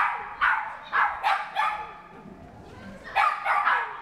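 A dog barking excitedly in quick series: about five sharp barks in the first second and a half, a short lull, then three more near the end.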